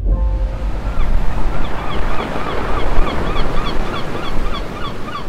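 Sea waves washing against the shore, with a low rumble of wind on the microphone. From about a second in, birds call over it in quick, short, repeated calls.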